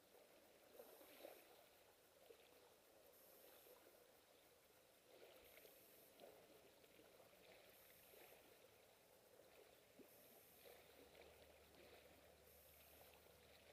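Faint small waves lapping on a pebble beach, a soft wash of water over the stones that swells every few seconds.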